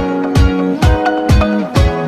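Background music: plucked string notes over a steady drum beat of about two beats a second.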